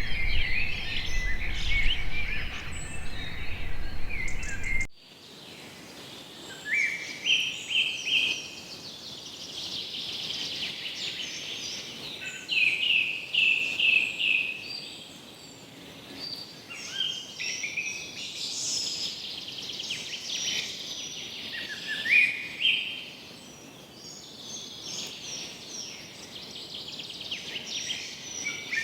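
Songbirds singing: chirps and trills over a low rumble, then after a cut about five seconds in, a bird repeating short phrases that step upward in pitch, about every five seconds, with other birds chirping behind.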